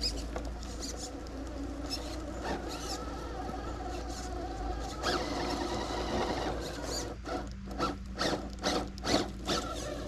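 Redcat Ascent Fusion RC rock crawler's brushless motor and geared drivetrain whining as it crawls, the pitch shifting as the throttle changes. Near the end comes a quick run of sharp clicks and knocks.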